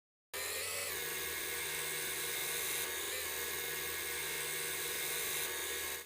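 Wood lathe running, with a turning tool cutting into the spinning wood: a steady motor hum under an even, hissing cutting noise. It starts abruptly just after the beginning and cuts off suddenly at the end.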